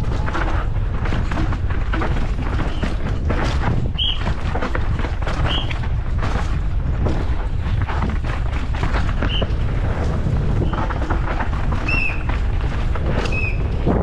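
Downhill mountain bike descending a rough forest trail: a steady rumble of wind buffeting the bike-mounted microphone and tyres on dirt, with constant rattling and knocks as the bike hits roots and rocks. A few short high squeaks come through about five times.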